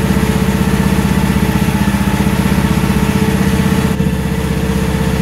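Mini excavator's small engine idling steadily after a test run of the repaired hydraulic controls, its firing pulses even.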